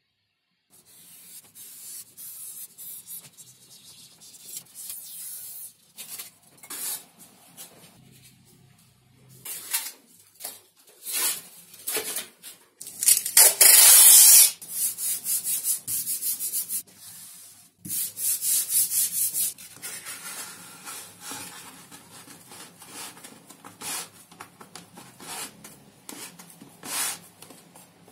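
Scratchy rubbing and handling noise of a paper template and foam sheets on a work surface, with masking tape pulled off its roll in one long, loud rip about halfway through, and further rubbing and shorter tearing sounds after it.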